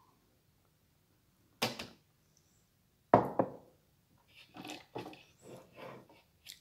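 A sharp knock, then a louder thud about three seconds in, followed by a run of lighter knocks and clatter on a hard surface.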